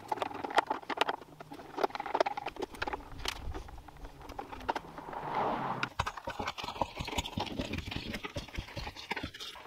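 A screwdriver driving screws into the plastic housing of an electric pressure washer to fit a cord-holder bracket: a run of irregular light clicks and taps, with a longer scraping stretch a little past the middle.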